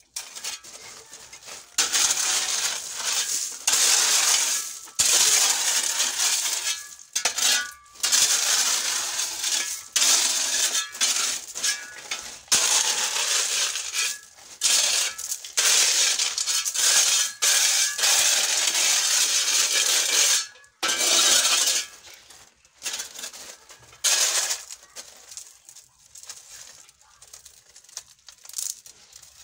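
Steel spade scooping and scraping through crushed stone gravel, the stones clattering and clinking with each stroke, about one stroke every second and a half. The strokes grow lighter and more broken near the end as the gravel is spread level.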